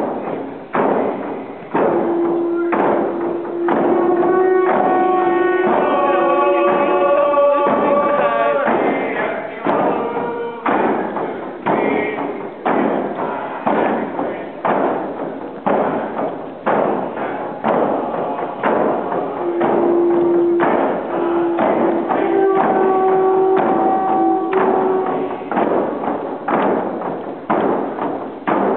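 A group of First Nations hand drums (frame drums) beaten together in a steady even beat. A group sings a song over the drumming in two stretches, a couple of seconds in and again after about twenty seconds.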